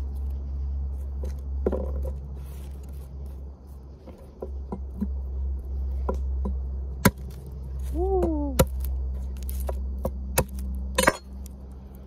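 Garlic cloves being peeled and cut with a small knife on a wooden board, over a steady low hum. Soft rustling of the papery skins comes first, then a few sharp knocks of the knife on the board in the second half.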